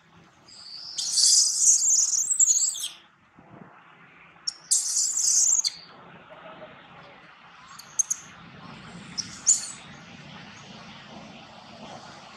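Birds chirping in high-pitched bursts: a long run of calls about a second in, another shorter run a few seconds later, then a few brief chirps, over a faint steady outdoor background.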